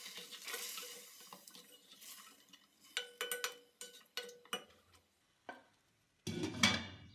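A ladle stirring meat in water in a metal pot, clinking sharply against the pot several times with a short ring. Near the end a glass lid is set down on the pot with a louder clatter.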